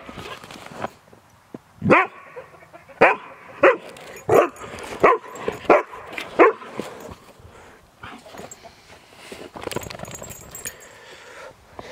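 Dog barking playfully: a quick series of about seven short barks, starting about two seconds in.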